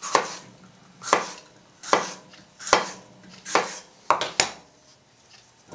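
Kitchen knife slicing a yellow bell pepper on a wooden cutting board: about seven separate cuts, roughly one a second, each ending in a sharp knock of the blade on the board, the last two close together.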